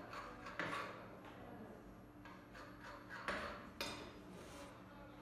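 A few short knocks and scrapes on a work counter, from a knife cutting rolled baklava dough and hands moving a metal baking tray: a pair about half a second in and another pair about three seconds in.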